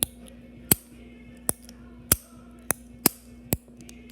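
A series of seven sharp, loud clicks at uneven intervals, roughly one every half second, over a faint steady hum.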